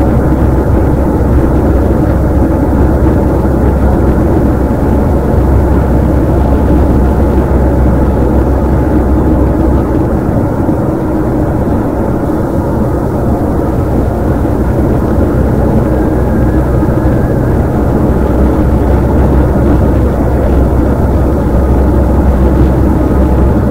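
Steady drone of engine and tyre noise heard from inside a vehicle driving at speed, heavy in the low end and easing slightly about halfway through.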